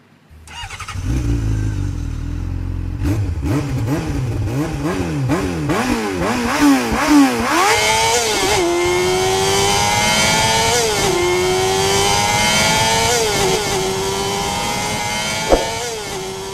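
Engine sound effect: an engine fires up, is blipped in quick revs, then accelerates through the gears, its pitch climbing and dropping at each of about four shifts. A sharp click comes near the end.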